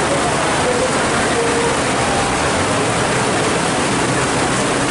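Heavy tropical downpour: a steady, loud hiss of rain pouring onto a flooded road.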